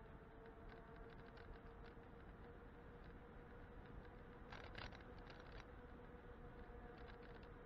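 Faint, muffled sound of an e-bike ride: a steady high hum with scattered light clicks and rattles, a busier cluster of clicks about halfway through.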